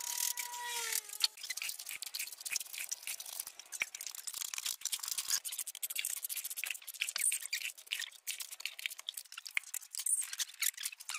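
Hand trowel scraping and tapping on wet concrete: a dense, irregular run of small scrapes and clicks.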